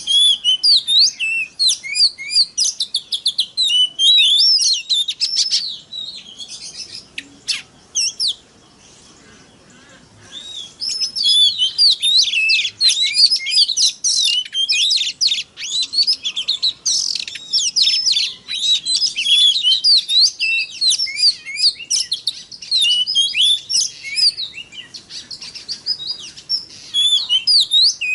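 Oriental magpie-robin (kacer) singing a fast, varied song of high whistles and chattering notes, breaking off for about two seconds roughly eight seconds in before resuming.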